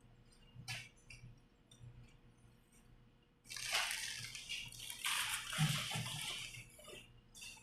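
Plastic bag rustling and crinkling for about three and a half seconds as greasy bike parts are bagged, after a few light clicks of parts being handled.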